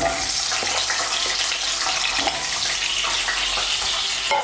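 Raw potato wedges dropped into hot mustard oil in a kadai, starting at once to sizzle loudly and steadily as they fry.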